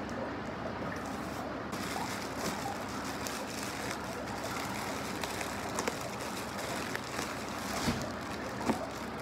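Clear plastic packaging crinkling and rustling as it is handled, with a couple of sharper crackles near the end, over a steady background noise.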